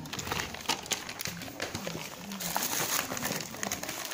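Gift-wrapping paper rustling and crinkling as hands handle a wrapped present and start to open it, a dense run of quick, irregular crackles.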